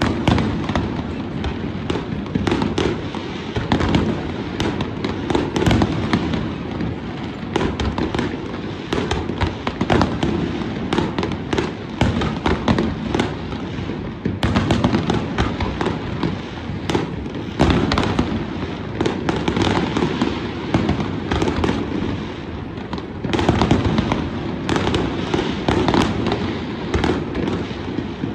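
A fireworks display going off without pause: a dense barrage of shell bursts and crackling, many sharp bangs overlapping over a continuous low rumble.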